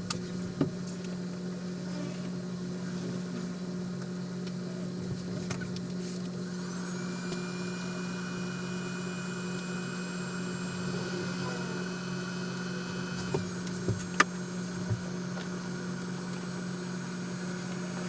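Steady low machine hum with a higher whine joining about six seconds in and dropping out about thirteen seconds in; a few light clicks near the end.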